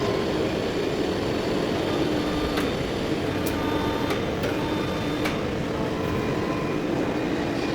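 Heavy-duty lathe turning a large steel part: a steady dense machine and cutting noise with faint humming tones, and a few sharp ticks in the middle.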